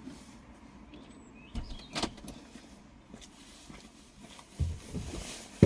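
A few faint knocks and handling noises: two light knocks about a second and a half to two seconds in, a dull thud near the end and a sharp click at the very end.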